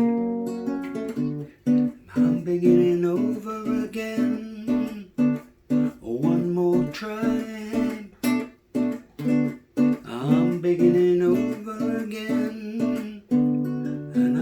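Acoustic guitar strummed in a steady rhythm of chords, an instrumental passage between sung verses.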